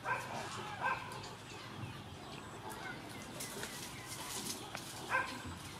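A dog barking in short single barks, two close together near the start and one near the end.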